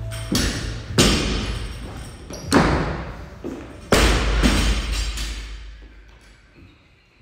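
Heavy thuds of feet landing on a wooden plyo box and the gym floor during weighted-vest box step-ups, four in the first four seconds, each fading slowly, then dying away.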